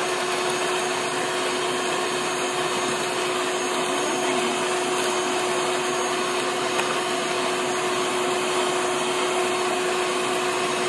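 Handheld electric mixer running steadily, its twin beaters whipping eggs in a stainless steel bowl until foamy. The motor whine holds one steady pitch.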